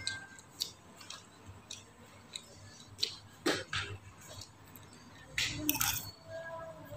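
Metal spoon scraping and clinking on a plate as rice is scooped up, with chewing in between. Short, scattered scrapes, the loudest cluster coming about five and a half seconds in.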